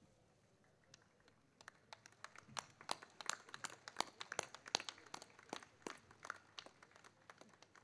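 Faint, scattered applause: a handful of people clapping unevenly, starting about a second and a half in, thickest in the middle and thinning out near the end.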